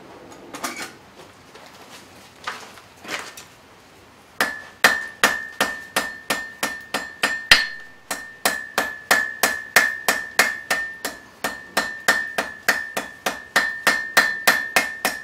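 Hand hammer striking a hot iron bar on an old Foster double-horn anvil: a steady run of blows, about four a second, each with a bright high anvil ring, starting about four seconds in after a few soft scrapes and clinks. The bar's square taper is being hammered on its diagonals to round it back out.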